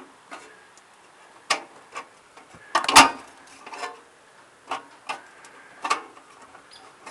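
A scattering of short, irregular clicks and knocks, about eight in all, over a quiet background; the loudest is a quick cluster about three seconds in.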